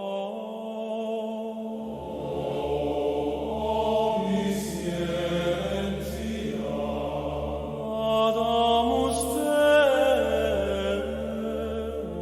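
Chant-like music with held tones, over which a low drone comes in about two seconds in; a sliding melodic line falls in pitch around the middle.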